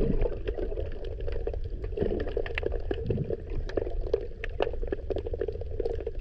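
Underwater ambience heard through a submerged camera: a steady, muffled low rumble of moving water with many scattered sharp clicks and crackles.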